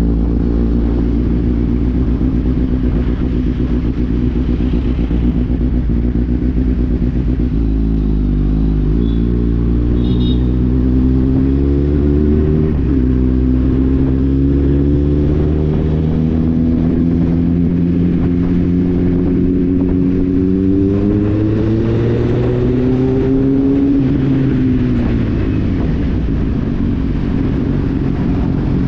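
Kawasaki Z800's inline-four engine running under way on the road. Its pitch climbs slowly through the middle, with a brief shift about thirteen seconds in, then falls away near the end as the bike slows.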